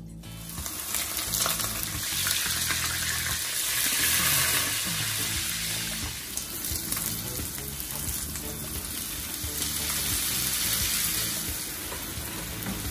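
Hot oil sizzling steadily in a frying pan as a flour-dredged whole fish fries, with vegetables being stirred in the pan with a wooden spatula near the end.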